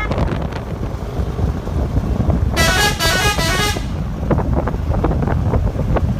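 Basuri 'telolet' multi-tone horn on a bus playing a short, quickly stepping melody for about a second, a little over halfway through, over a steady low rumble.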